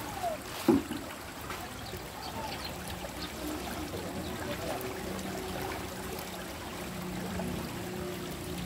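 River water running and trickling, with one brief sharp hit under a second in, the loudest moment. A faint low steady hum comes in about halfway through.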